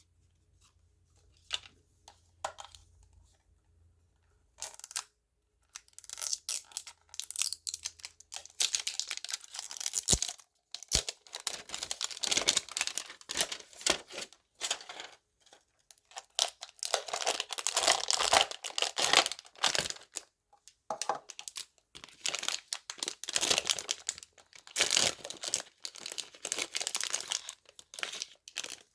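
Packaging of a Disney Doorables blind pack being torn open and crinkled by hand. After a few faint clicks, dense irregular crinkling and tearing begins about five seconds in, with a couple of sharp clicks partway through.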